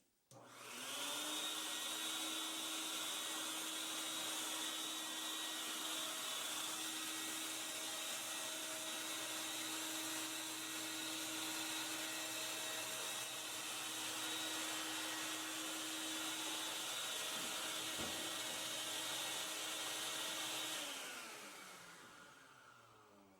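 Vacuum motor switched on, spinning up within about a second and then running steadily with a high whine, blowing air into an air-caster platform so that a table saw floats on a cushion of air. About 21 seconds in it is switched off and winds down, falling in pitch.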